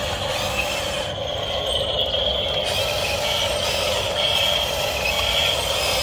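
Electric motors of a Huina remote-control excavator whining steadily as it drives and works its arm.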